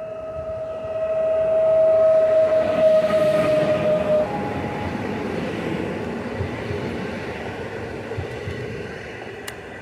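PESA Dart ED161 electric multiple unit pulling in past the platform: a steady whine that cuts off about four seconds in, over a rolling rumble of wheels and carriages that is loudest as the front passes close, then eases as the coaches roll by.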